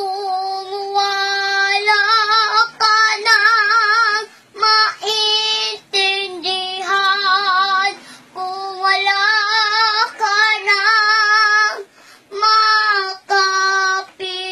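A young girl singing unaccompanied, holding long wavering notes in phrases with short breaths between them.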